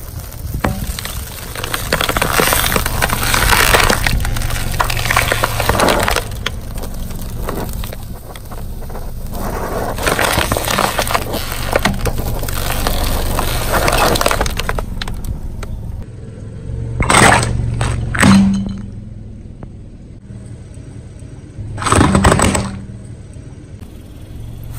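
A lit fuse fizzing and a foil-wrapped firework hissing and crackling as it burns and smokes against a car tyre, over a steady low engine hum. After it dies down, three loud sharp cracks.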